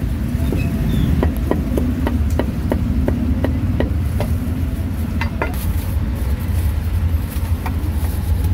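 A cleaver chopping cooked pork intestines on a wooden chopping block, in quick, even strokes about three to four a second. The strokes stop about five seconds in, and a few single knocks follow. A steady low rumble runs underneath.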